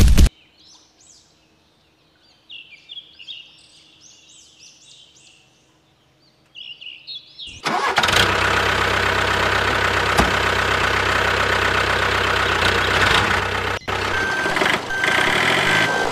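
Faint bird chirps in a quiet spell, then about seven and a half seconds in a loud, steady mechanical running noise like a motor vehicle engine starts and keeps going, cutting out for an instant near the end.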